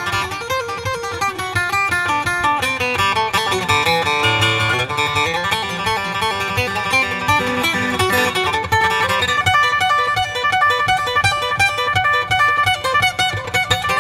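Acoustic guitar played solo as an instrumental, with quick plucked notes. The picking grows busier from about nine seconds in.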